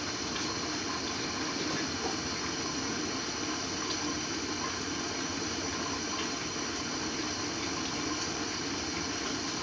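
Steady, even hiss of a gas burner on a medium flame under a covered pot of rice and water that is heating but not yet boiling.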